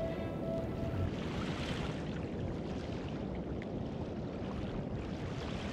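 Small waves washing on a sandy beach, a steady wash of noise. Background music ends about a second in.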